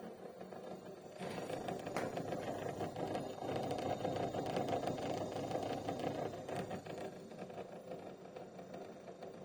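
Hitachi air conditioner making an abnormal noise: a rapid buzzing rattle over a steady hum that swells about a second in, holds for several seconds and eases off near the end, the sign of a fault in the unit.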